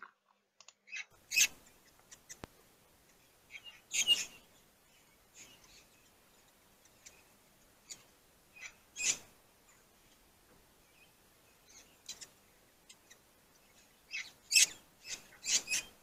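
Cape parrots giving brief calls at irregular intervals, with a cluster of several calls near the end.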